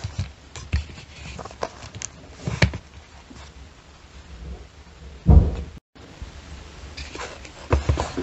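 Light wooden clicks and knocks as a laser-cut plywood walking Moai model is handled on a plywood board, with one heavier wooden thump about five seconds in.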